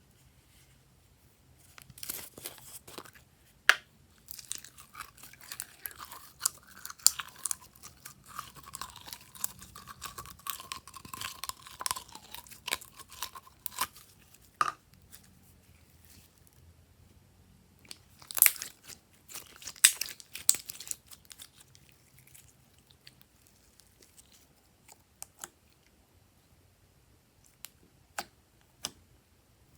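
Glossy slime being pressed and worked by hand, giving clusters of sticky pops and crackling clicks. The clicking is busiest for the first half and again around two-thirds of the way in, with only a few scattered pops near the end.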